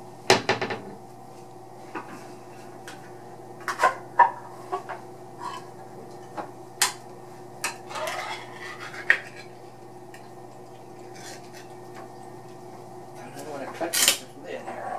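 Spoon, cans and dishes clinking and scraping on a kitchen counter as canned cat food is dished out: a string of sharp clinks, a scraping stretch about halfway through, and louder clatters near the start and near the end, over a steady low hum.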